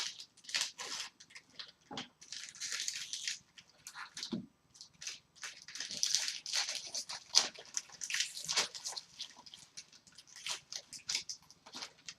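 Hockey card packs being handled and opened: foil wrappers crinkling and tearing, and cards sliding and shuffling, in short irregular rustles, with one duller knock about four and a half seconds in.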